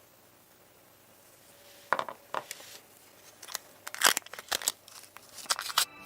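Hand work on a small diecast model car: after a near-silent start, a run of irregular sharp clicks and knocks begins about two seconds in and grows busier towards the end.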